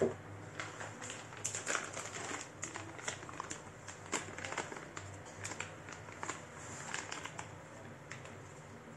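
Irregular crinkling and light clicks of packaging being handled, stopping a little before the end.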